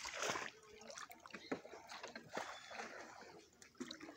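Floodwater splashing and sloshing in irregular surges as someone moves through it.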